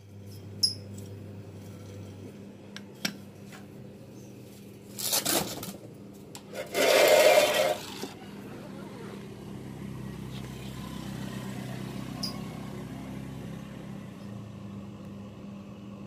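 New hermetic refrigerator compressor running with a steady low hum while the system is charged with R-134a refrigerant. A short rush of noise comes about five seconds in and a louder one, about a second long, about seven seconds in, with a few sharp clicks.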